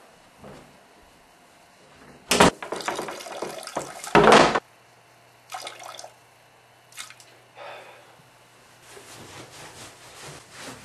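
Bathroom sounds: the toilet seat lid and the bathroom door knocking and clattering, with two loud sudden bursts about two and four seconds in and a few lighter knocks after, then a faint trickle of water near the end.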